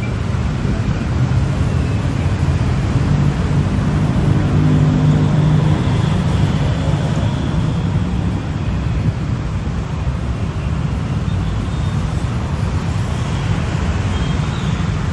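Steady road traffic on a busy city street, with a low vehicle-engine hum that builds over the first few seconds and fades by about six seconds in.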